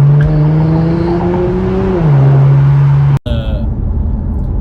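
Infiniti Q50 Red Sport's 3.0-litre twin-turbo V6 accelerating in a gentle pull. The engine note rises steadily, then drops at an upshift about two seconds in. A faint high squeak runs over it early on; the owner hears squeaking on pulls, and the dealer put the car's noises down to a bad idler pulley and tensioner. The sound cuts off abruptly a little after three seconds, into a different, rougher engine sound.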